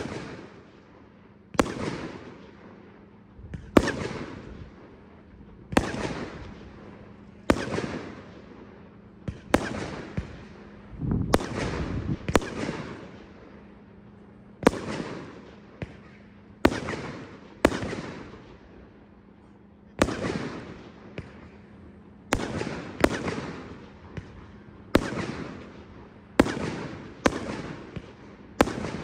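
Tres (Thing 3) 300-shot compound firework cake firing. Loud aerial bursts, each a sharp bang that trails off over about a second, come one every one to two seconds, some in quick pairs.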